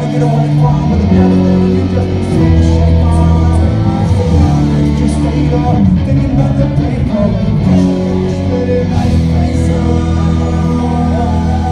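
Loud live rock music from a band: electric guitar and bass holding long notes that change every second or so, with a singing voice over them.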